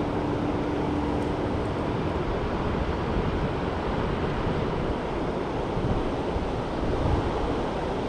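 Steady rushing of a mountain river's flowing water, an even wash of noise.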